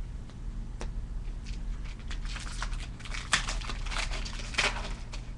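Plastic wrapper of a 2008-09 Upper Deck Ice hockey card pack crinkling and tearing as it is pulled open by hand. The crackle grows busier from about two seconds in, with the loudest rips near the end.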